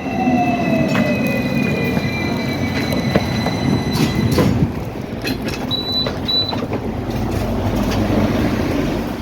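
Hong Kong tram running on its rails, its motor whine falling in pitch over the first couple of seconds as it slows, with a high wheel squeal that fades out about halfway through. Scattered clicks from the wheels over the rails, and two short high squeaks about six seconds in.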